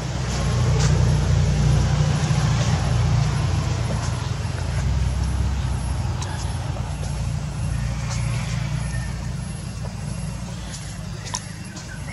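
Low, steady engine rumble of a motor vehicle running nearby. It swells over the first couple of seconds, then slowly fades.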